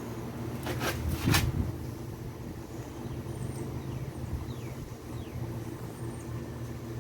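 Steady low outdoor rumble, with a few sharp clicks about a second in and a few faint short chirps later.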